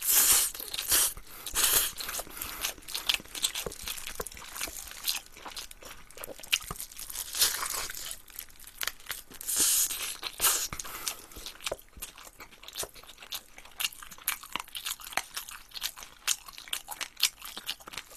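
A person chewing crispy glazed fried chicken, with repeated crunching bites. It is loudest near the start and again around ten seconds in.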